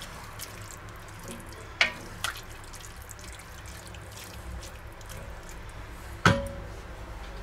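A wooden spoon stirs a wet ragù bolognese, freshly thinned with milk, in an enamelled pot, making a steady wet squelching. There is a sharp knock about two seconds in and a louder, briefly ringing knock near the end.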